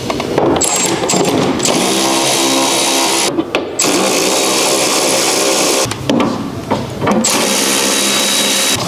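Cordless power driver running in several bursts, spinning out the bolts that hold the Toyota Tacoma's plastic intake air box.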